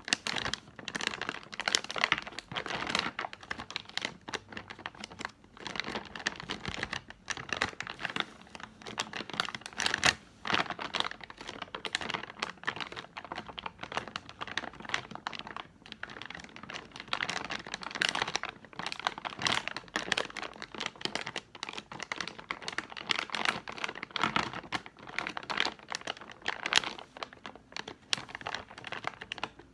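Plastic candy bag holding gumballs being crinkled and squeezed by hand, an irregular crackling that goes on the whole time.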